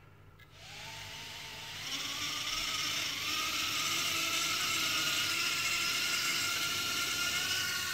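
Eachine E010 micro quadcopter's four tiny brushed motors and propellers spinning up about half a second in: a high whine that rises in pitch over the next couple of seconds, then holds steady at a light throttle.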